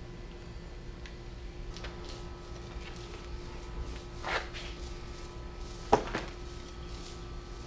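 A few light handling knocks and rustles over a steady low hum. A short knock comes about four seconds in, and a sharper, louder knock about six seconds in.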